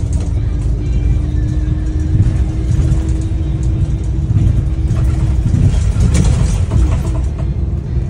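Daewoo FX116 bus engine and drivetrain heard from inside the passenger cabin while driving: a loud low rumble with a steady drone that breaks off about two-thirds of the way through, with a few rattles near the middle.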